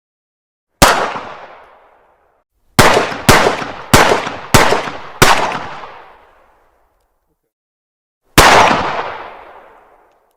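9mm pistol gunshots: a single shot, then five in quick succession about half a second apart, then one more shot near the end, each leaving an echoing tail that fades over about a second and a half.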